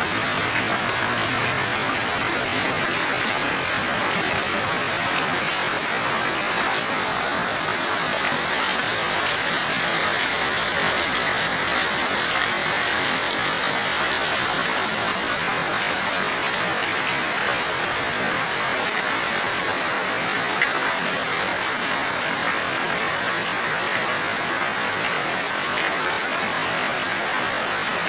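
Heavy rain falling steadily, a dense even hiss, with water pouring off the roof edges. One brief tick sounds about three-quarters of the way through.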